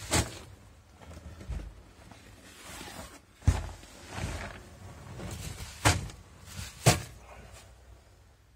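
Four sharp knocks, spaced irregularly, with soft rustling between them, then quieter near the end.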